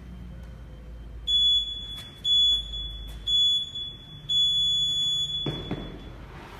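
Workout interval timer counting down: three short, high, identical beeps a second apart, then one longer beep on the same pitch that signals the start. As the long beep ends there is a thud.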